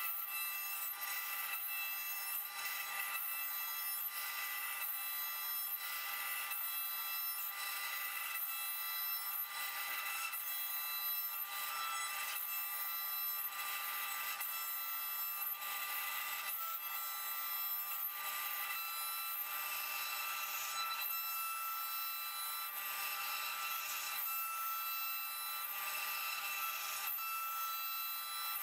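CNC router cutting a walnut block on a 3D roughing toolpath. The spindle runs with a steady high whine, and the wood-cutting noise swells and fades every second or two as the bit works across the block.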